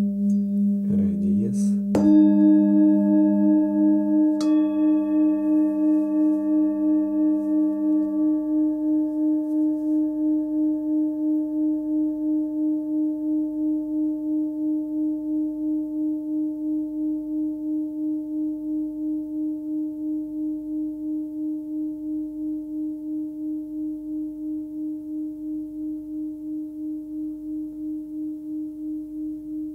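A forged singing bowl, most likely the 15.8 cm bowl tuned to D# (about 304 Hz), struck once about two seconds in, then ringing on with a slow pulsing wobble and fading gradually. A light second touch a couple of seconds later adds brighter overtones. The previous bowl's lower tone dies away beneath it over the first several seconds.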